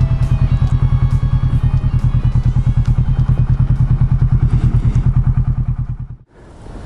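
Kawasaki Z650 parallel-twin motorcycle engine running at low speed with a steady, quick pulse. It fades out and cuts off about six seconds in, leaving faint wind on the microphone.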